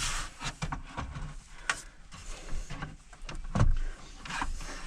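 Scattered clicks, knocks and rubbing of a car's dash panel being handled and fitted into place, with one louder knock a little past halfway.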